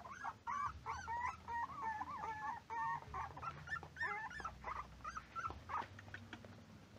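Several young puppies whining and yelping in quick, overlapping high-pitched cries, which thin out to a few scattered whimpers after about four and a half seconds.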